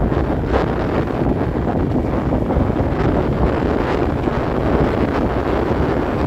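Wind rushing steadily over the microphone of a motor scooter riding along a road, with the scooter's running and road noise underneath.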